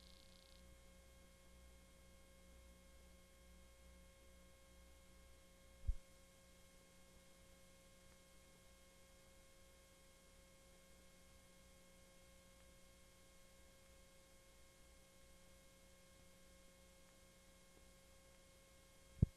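Near silence from a blank stretch of videotape: a faint steady electrical hum and tape hiss, broken by two brief pops, one about six seconds in and one near the end.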